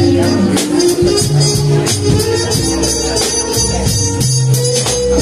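A live band playing: acoustic guitar and a drum kit with frequent cymbal strokes, under a melody of held notes.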